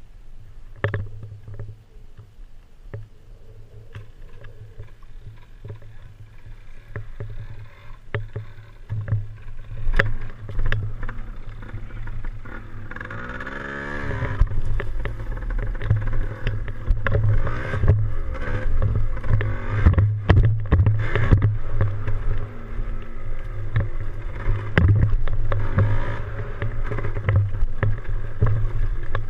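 Yamaha DT175's single-cylinder two-stroke engine running under way as a low steady drone. It revs up with a rising and falling note about halfway through and runs louder after that, with frequent sharp knocks and rattles.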